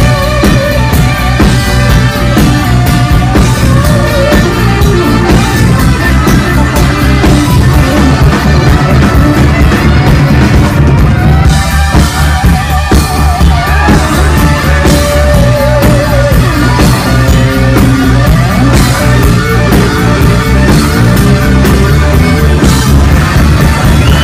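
Live rock band playing loud: saxophone and electric guitar over bass guitar and drum kit.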